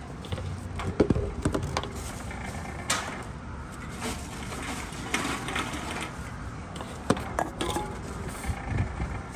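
Plastic bottles and an aluminium can being fed into a Tomra T-90 reverse vending machine's intake: sharp knocks and clatters as the containers go in and land on the rollers, over the steady low hum of the machine's conveyor.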